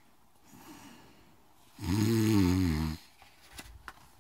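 A woman imitating a sleeping bear's snore: a faint breath in, then one loud, wavering snore about two seconds in, lasting about a second. A few light clicks follow near the end.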